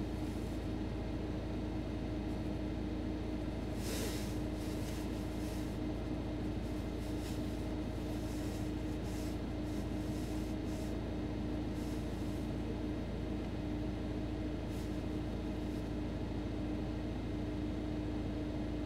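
Steady hum and hiss of background noise inside a car, with a few faint clicks.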